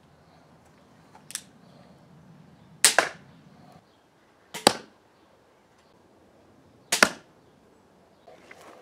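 80 lb pistol crossbows shot three times, about a second and a half to two seconds apart: each shot is a sharp snap of the string with the bolt smacking into a stack of cardboard a split second later. A small click comes about a second in.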